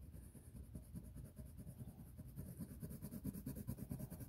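Faint scratching of a colored pencil shading on paper in quick, repeated back-and-forth strokes.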